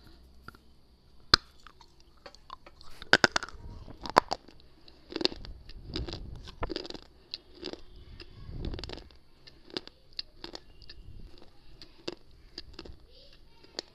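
Biting and crunching a hard slate cube right at a clip-on microphone: a few sharp snaps in the first four seconds, then a run of crisp crunches as it is chewed.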